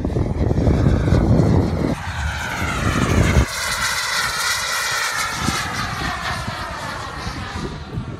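An F-35 fighter jet's turbofan engine passing loud and low overhead. A heavy low rumble cuts off suddenly about three and a half seconds in, and the jet's whine then slides steadily down in pitch as it moves away, fading toward the end.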